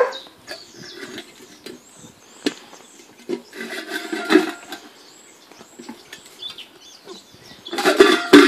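Grand Basset Griffon Vendéen puppies licking and chewing meat from stainless steel bowls, the bowls clinking and scraping as they are nudged over brick paving, with a loud ringing clatter of a bowl about eight seconds in.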